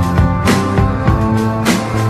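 Background music with a steady beat: held instrument notes over strong drum hits about every second and a bit.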